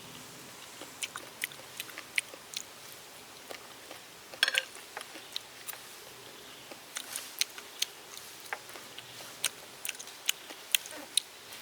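Crunchy chewing of fried pig ear and peanuts, close up: a series of sharp separate crunches, with a louder burst about four and a half seconds in and quicker crunches in the second half.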